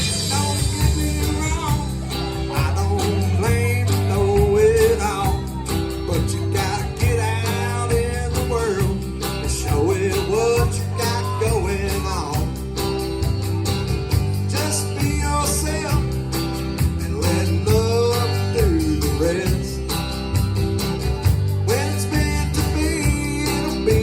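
Live country band playing a song, with a steady bass and drum beat under guitar and a melody line that bends in pitch.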